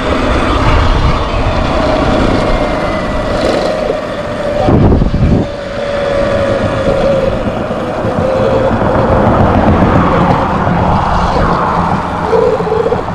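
Wind buffeting the microphone of a Sur Ron X electric dirt bike at speed, with the motor's steady whine running underneath. A stronger gust of rumble comes about five seconds in.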